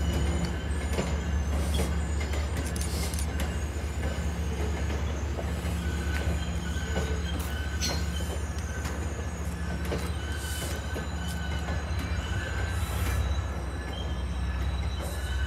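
MBTA commuter rail train's coaches rolling slowly past, wheels squealing in thin, wavering high tones and clicking over the rail joints, over a steady low rumble.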